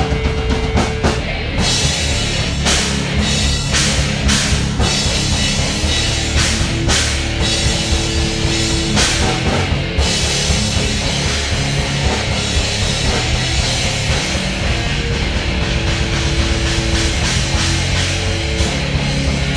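Rock band jamming loud, with held guitar and bass notes over a drum kit. Cymbal crashes are heaviest through the first half.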